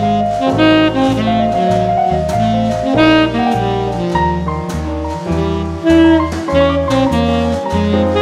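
Background jazz music: a lead melody over a moving bass line and steady drum hits.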